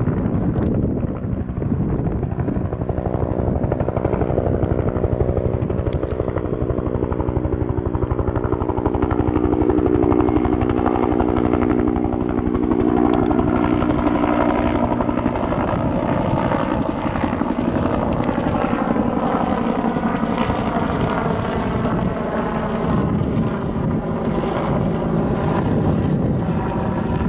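A helicopter flying past with a steady rotor and engine sound. Its tone holds even for about the first half, then thins and shifts as the helicopter moves off.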